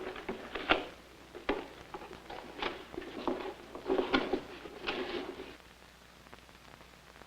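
Boxes of merchandise being handled in a storeroom: a run of irregular knocks, clatters and rustles that stops about five and a half seconds in, leaving a faint steady hiss.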